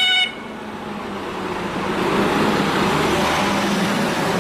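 A German fire engine's turntable-ladder truck, whose two-tone siren breaks off just after the start. Its engine and tyre noise then grows steadily louder as the truck drives close past.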